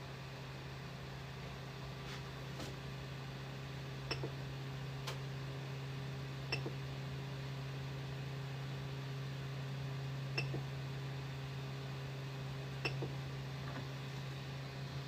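Steady low machine hum with a few faint higher tones, broken by about six short, sharp clicks or taps spaced irregularly a second or more apart.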